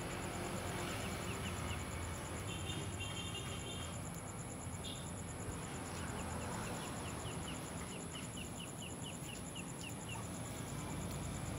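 Faint outdoor yard ambience: a steady high insect trill over a low rumble, with runs of short, quick, high chirps from a bird, the longest run in the second half.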